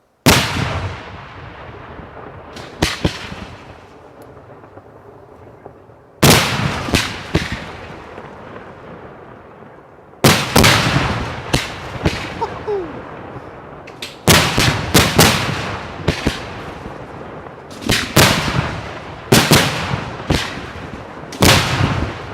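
Large aerial firework shells bursting overhead in a display: sharp bangs, some single and some in rapid clusters of two to four, each followed by a long rolling echo. The first bang opens the sequence out of near silence.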